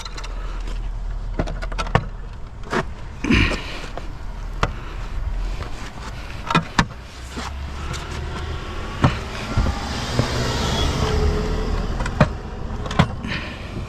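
Scattered knocks, clunks and rattles of scrap items being moved and loaded by hand, over a steady low vehicle rumble. A broad whoosh of a vehicle swells and fades around two-thirds of the way through.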